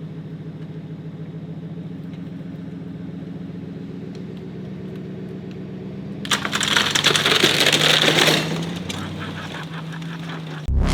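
A steady low engine hum. About six seconds in, a loud rushing, crackling noise joins it for about two seconds. Electronic music starts just before the end.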